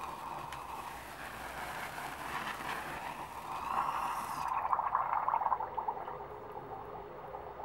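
A bundle of three lit sparklers hissing as they burn, then pushed into a glass of water about halfway through: the high hiss cuts off suddenly and gives way to a louder, fast bubbling gurgle as they keep burning under the water.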